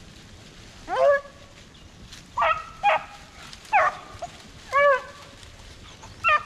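Beagles baying in about six short, separate calls, each a pitched bay that bends in pitch: hounds giving mouth while running a rabbit.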